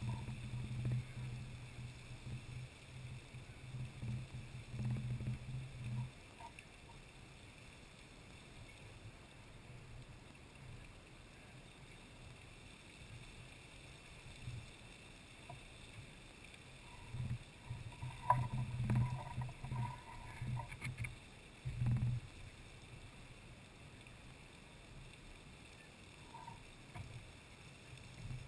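Lady Knox Geyser in eruption: a steady rushing hiss of its water column spouting and splashing back down. Low rumbling comes and goes over the first few seconds and again past the middle.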